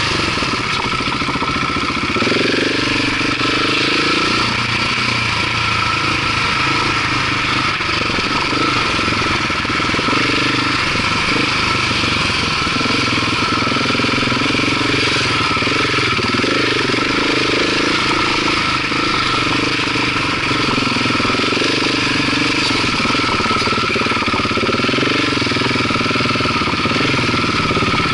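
Dirt bike engine running on the trail, its note rising and falling.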